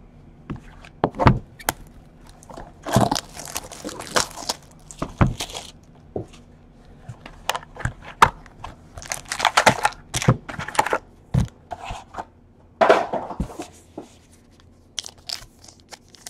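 Hands opening a cardboard hobby box of trading cards and lifting out the wrapped card packs. The sound is irregular taps, scrapes and short bursts of crinkling wrapper.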